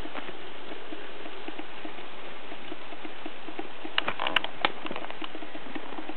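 N scale 2-6-0 camelback steam locomotive with a Kato motor running with a long freight train: a steady whir with light, rapid clicking of the wheels on the rails, about four clicks a second. A few sharper, louder clicks come about four seconds in.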